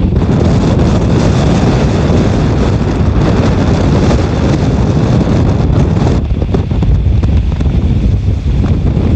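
Strong wind buffeting the microphone: a loud, low rumble with rushing hiss that eases somewhat about six seconds in as the gust drops.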